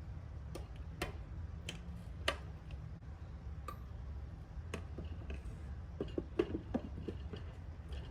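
Scattered light clicks and taps of small objects being handled, about one a second, with a quick cluster of small knocks about six seconds in, over a steady low hum.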